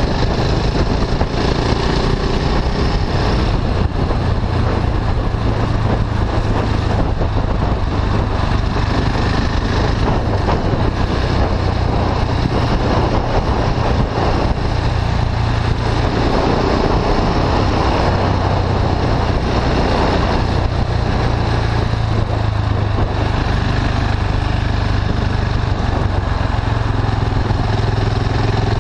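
KTM 690 Duke IV's single-cylinder engine running steadily as the bike is ridden, heard through an Akrapovic slip-on exhaust with the catalytic converter bypassed.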